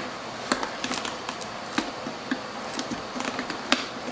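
Small plastic clicks and handling noise as a motorcycle helmet's pop clips are lined up and pressed back into place: irregular sharp ticks, with a louder click near the end.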